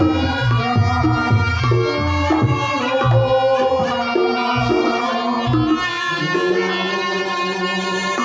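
Reog Ponorogo gamelan music: a slompret (Javanese shawm) plays a bright, reedy melody over kendang drum strokes.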